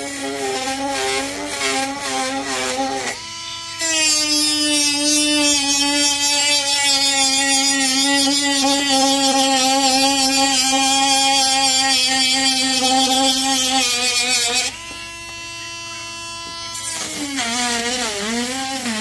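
Dremel rotary tool with a sanding drum grinding into the polymer frame of a Glock 26 for a trigger-guard undercut. A high motor whine carries a loud grinding hiss from about four seconds in to about fifteen, when it eases to a lighter, slightly higher whine. Near the end the pitch wavers and dips as the drum bites again.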